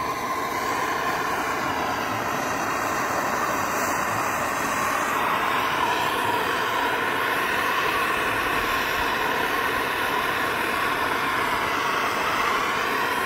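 Kovea Tornado butane torch burning with a steady hiss, its flame played on the stovepipe of a wood/pellet stove to warm the flue so it draws and does not backdraft.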